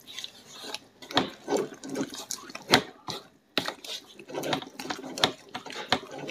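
A utensil stirring thick, sticky cooked flour paste in a metal pot: irregular scrapes and knocks against the pot, about two a second.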